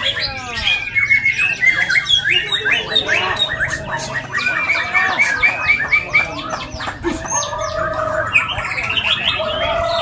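Several caged white-rumped shamas (murai batu) singing at once in overlapping competition song: fast trills, rapid repeated whistles and harsh squawky notes, with a couple of longer held whistles near the end.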